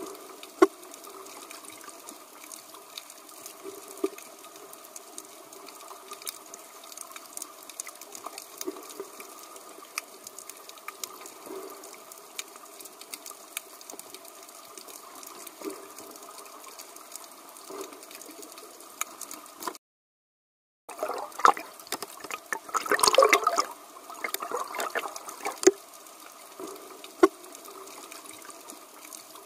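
Underwater ambience picked up by a camera below the surface: a steady watery hiss with scattered sharp clicks. The sound cuts out for about a second two-thirds of the way through, then comes back with a louder stretch of gurgling.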